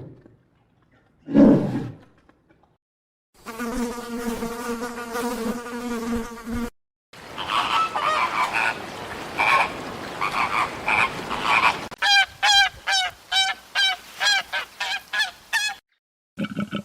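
A run of separate animal sounds: a short loud call about a second and a half in, then a steady insect buzz for about three seconds, then a stretch of chirping calls, and near the end a rapid series of short falling calls, about three a second.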